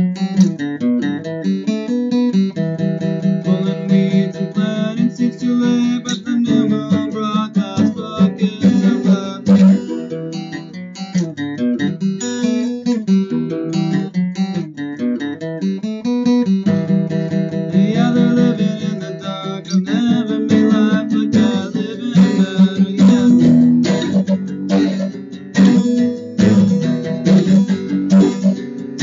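Acoustic guitar being strummed and picked, chords ringing in a continuous rhythmic pattern.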